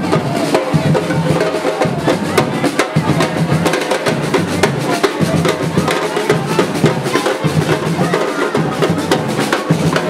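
Drums beating continuously in a dense, rapid rhythm of strokes.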